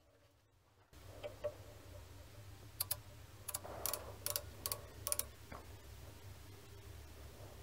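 Light, irregular metallic clicks from a digital micrometer's ratchet thimble being turned to close its anvils on a turned steel shaft, about ten clicks over a few seconds, over a faint low hum.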